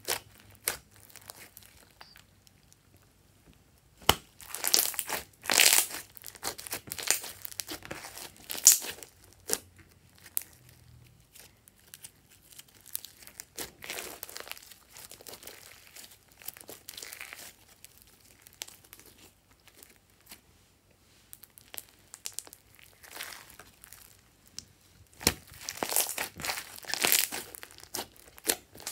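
Hands squeezing, stretching and pressing a large mass of fluffy slime mixed with foam beads, making irregular bursts of squishing and sticky crackling, with short quiet pauses between handlings.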